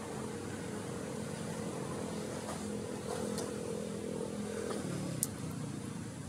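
A motor vehicle's engine running steadily, its pitch dropping about five seconds in, with a single sharp click just after.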